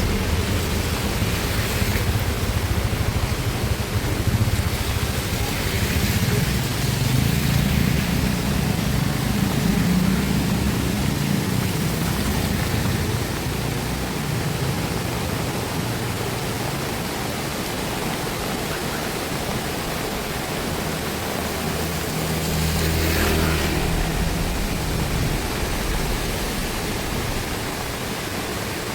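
Heavy rain falling steadily, with a low wind rumble that is stronger in the first half and swells again about three-quarters of the way through.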